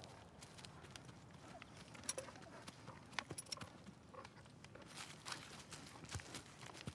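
Faint, scattered light clicks and rustles as two ponies shift about on leaf-strewn dirt.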